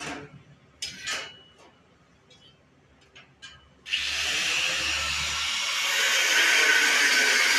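A few short scrapes and knocks, then a handheld power tool starts about four seconds in and runs steadily, getting louder about two seconds later.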